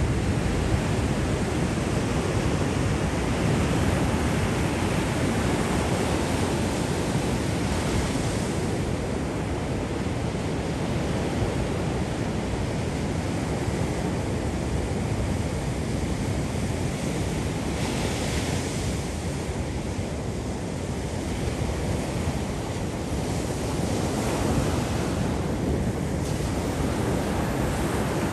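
Surf breaking and washing up the beach in a steady rush, with wind buffeting the microphone and a few brief louder washes.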